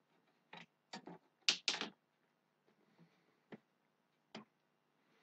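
Quiet, irregular clicks and taps from handling and fitting the small whip sections to the top section of a Sigma Euro-Comm HF-360 fibreglass vertical antenna. The clicks bunch up in the first two seconds, then come singly twice more.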